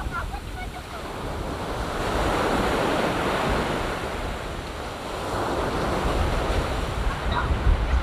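Ocean waves breaking and washing up a sandy beach, the surf swelling twice, about three and six seconds in, with wind rumbling on the microphone.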